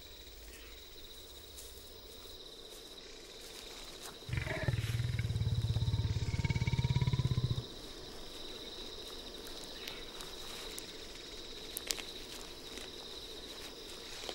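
A leopard growling: one low, rasping growl of about three seconds, starting some four seconds in.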